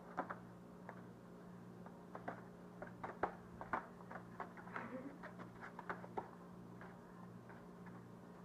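Faint scuffling of a cat play-fighting with a hand on carpet: a string of short clicks and taps from paws, claws and teeth, dying away after about six seconds. A steady low hum runs underneath.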